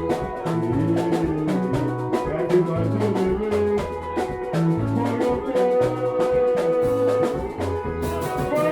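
Music with a steady drum beat, a stepping bass line and a melody.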